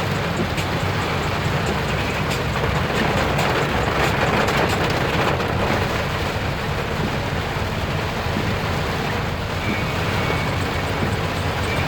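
A vehicle driving in the rain: a steady low rumble of engine and road noise with an even hiss of rain and wet tyres.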